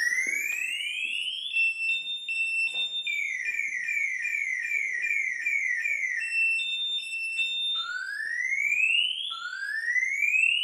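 Electronic siren cycling through patterns. It starts with a rising wail, then alternates between two steady tones, then runs quick falling chirps about three a second in the middle, alternates again, and ends with two more rising wails.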